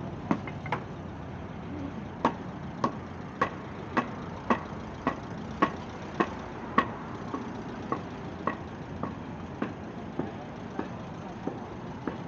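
Footsteps at a steady walking pace, a little under two steps a second, each one a sharp click, over a low hum of city traffic.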